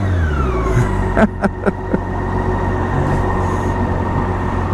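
BMW K1600B Grand America's inline-six engine heard from the rider's seat: the revs fall away over the first second, then it runs steadily under way, with a few sharp taps in between.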